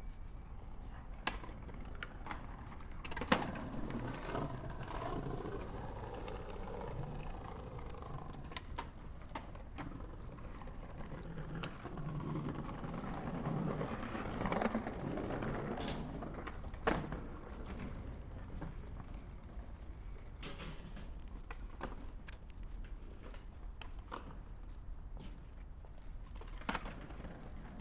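Skateboard wheels rolling over pavement in a steady rumble that swells and fades, with a few sharp clacks of the board striking the ground; the loudest clacks come about three seconds in and about seventeen seconds in.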